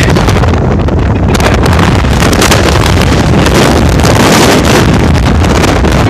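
Loud wind buffeting the microphone in the open bed of a pickup truck moving at highway speed, with the truck's road noise underneath.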